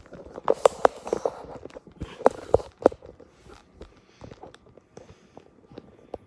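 A package being handled and opened: a quick run of sharp knocks and crinkles in the first three seconds, then lighter scattered clicks.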